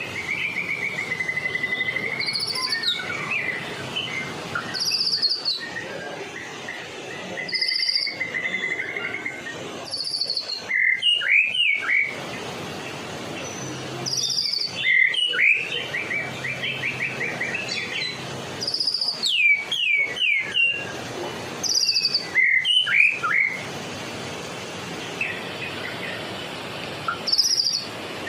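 White-rumped shama of the Medan type singing steadily, in varied phrases of rapid trills, quick sweeping whistles and short sharp high notes, one after another with hardly a pause.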